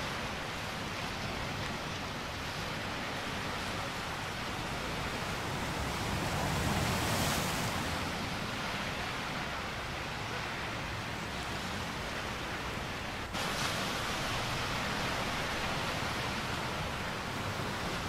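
Small waves breaking and washing up on a sandy shore: a steady hiss of surf that swells up and falls back around the middle, with a sudden brief dropout about two-thirds of the way through.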